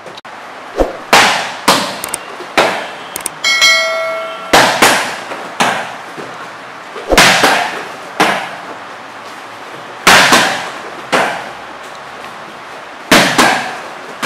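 Boxing-gloved strikes smacking into pads held by a partner, in quick groups of two or three, each a sharp loud slap that rings briefly in the room. A short bell-like ringing tone sounds a few seconds in.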